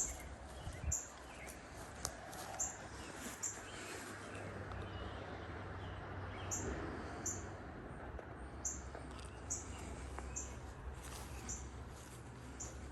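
A small bird chirping: short, high-pitched chirps repeating irregularly about once a second, over a low steady rumble with a few faint clicks.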